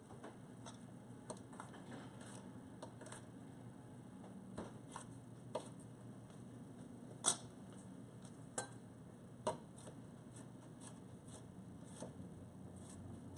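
Kitchen knife chopping a red bell pepper on a cutting board: faint, irregular taps, with a few louder knocks in the middle.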